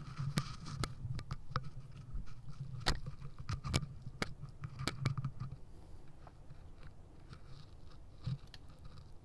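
A string of irregular sharp clicks and taps over a low hum. The clicks come thick in the first five seconds or so and thin out after.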